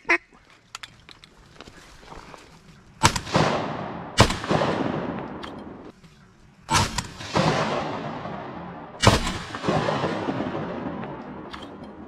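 Four shotgun shots at ducks, at about three, four, seven and nine seconds in, each ringing out in a long rolling echo.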